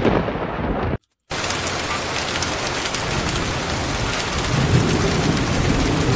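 Steady rain with low thunder rumbling under it. The sound cuts out briefly about a second in, then the rain carries on evenly.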